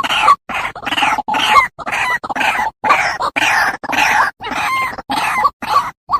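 White-breasted waterhen calling a fast run of harsh, croaking 'kruak' notes, about three a second.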